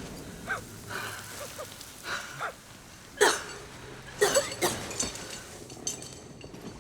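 People breathing hard, with short strained gasps and grunts: the sound of climbers struggling after a fall. Two sharper, louder gasps come about three and four seconds in.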